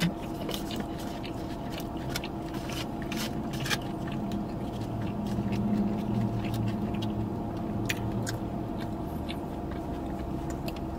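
A person eating a burrito bowl by hand and chewing close to the microphone, with wet mouth clicks and small smacks scattered throughout. A steady low hum runs underneath.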